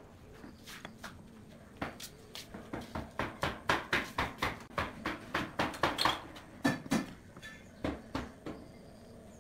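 Small wooden hexagon tiles clicking and knocking against one another and the board as they are set into glue and pressed into place by hand. The clicks come as an irregular series of sharp taps, thickest in the middle and fewer in the first couple of seconds and near the end.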